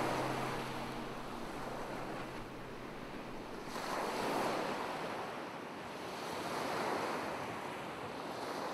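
Waves washing in on a shore, the surf swelling and receding about every three seconds.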